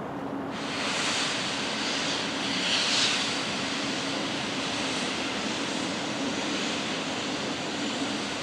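C61 20 steam locomotive venting steam: a loud hiss that starts suddenly about half a second in and keeps going, over a steady low hum.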